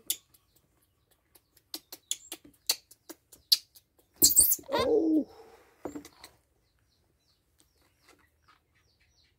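Baby macaques squeaking, with a run of short clicks and one louder cry about four seconds in that falls in pitch.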